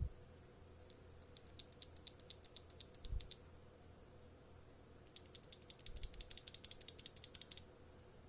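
Keystrokes on a mechanical keyboard with Outemu Black linear switches, clacking as the keys bottom out. One run of strokes comes about a second in, then a faster, denser run of about ten a second in the second half. A dull thump sounds right at the start and another around three seconds in.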